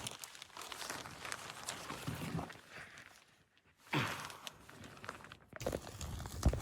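Irregular crunching steps in snow, broken by a brief dead stop about three seconds in. A faint steady hum comes in near the end.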